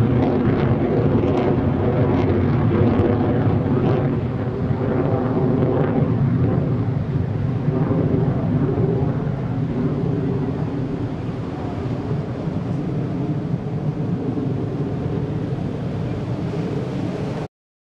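F-16C Fighting Falcon jet engine noise as the fighter flies overhead, a steady roar with crackling in the first few seconds, slowly easing as the jet moves away. It cuts off suddenly just before the end.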